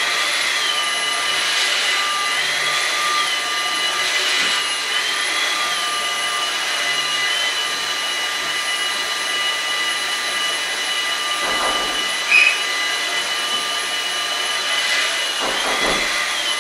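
Stick vacuum cleaner running on a laminate floor: a steady motor whine over suction noise, its pitch rising briefly every couple of seconds. A short high blip about twelve seconds in is the loudest moment.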